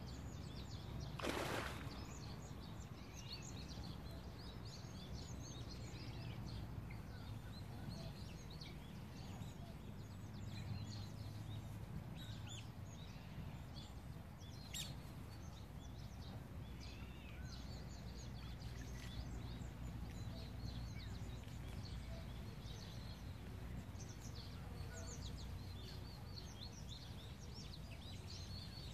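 Many birds chirping and calling over a steady low outdoor rumble. A short burst of rushing noise comes about a second in, and a single sharp click about halfway through.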